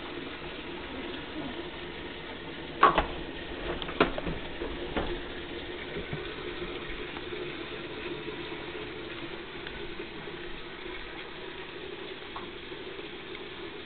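Washing machine running with water rushing in steadily. A sharp knock comes about three seconds in, followed by a few lighter knocks over the next two seconds.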